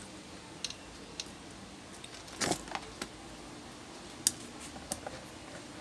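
A handful of short metallic clicks and clinks from a stand fan motor's aluminium end cap and its new bushing being handled and pressed into place by hand, with one sharper click about four seconds in.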